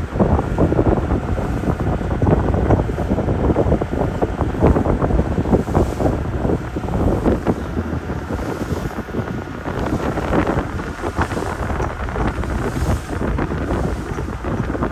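Strong wind buffeting the microphone in uneven gusts, over a rush of open sea.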